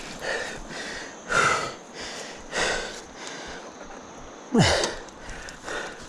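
A person breathing hard, with about five heavy exhalations roughly a second apart and a falling, groan-like voiced breath near the end. It is panting from the effort of pushing a loaded touring bicycle up a steep, slippery slope.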